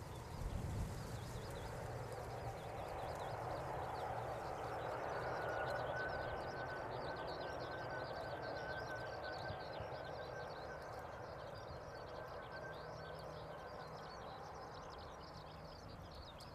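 Jet engines of an Airbus A320-211 (CFM56-5A) during the landing rollout: a rushing noise with a thin steady whine, swelling a few seconds in and then slowly fading as the aircraft rolls away. Small birds chirp rapidly over it.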